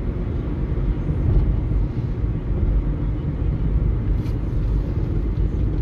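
Steady low rumble of tyres and engine heard from inside a car driving along a paved road.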